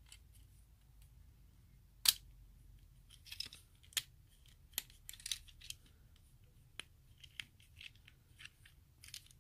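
Small plastic parts of a Transformers Windcharger toy car clicking and scraping as it is handled, with scattered sharp clicks. The loudest is a single snap about two seconds in, as the tinted windshield shuts over the seated mini figure.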